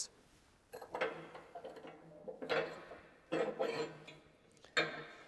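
The powder-coated steel belt guard of a PTO-driven wood chipper being unfastened and swung open: four short bouts of metallic rattling and scraping.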